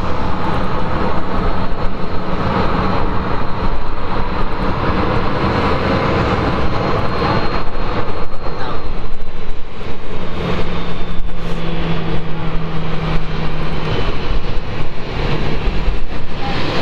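Boeing 777 jet engines heard at a distance as the airliner slows on the runway after landing: a steady roar with a thin high whine that falls slightly about halfway through. A low steady hum joins for a few seconds past the middle.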